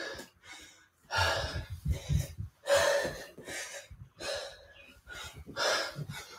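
A man breathing hard from exertion mid-workout: loud, rapid breaths in and out through the mouth and nose, a little more than one a second.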